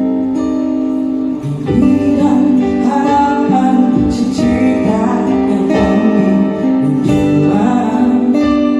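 Music with guitar over held chords, filling out and getting louder about a second and a half in.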